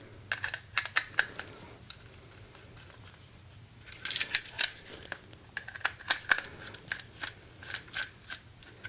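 Screwdriver loosening the terminal screws on a new USB wall outlet: a run of small, irregular metal clicks and scrapes in two spells, with a pause of about two seconds between them.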